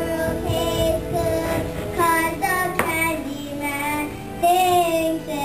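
A children's musical-theatre cast singing together to musical accompaniment, a sung melody with held notes.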